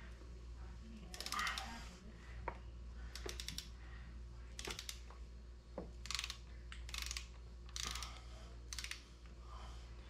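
Ratchet of a torque wrench clicking in about seven short bursts as the handle is swung back and forth, running down an intake camshaft actuator bolt on a 2.0 Ecotec engine toward 22 foot-pounds.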